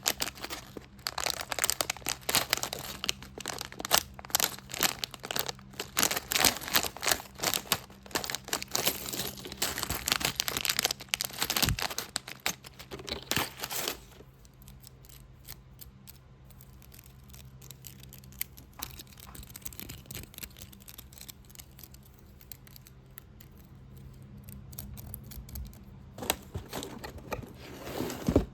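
Fast tapping and scratching on a box, with crinkling, in dense rapid strokes. About halfway through it drops to much softer, light rubbing and tracing for a while, then the loud, fast handling starts again near the end.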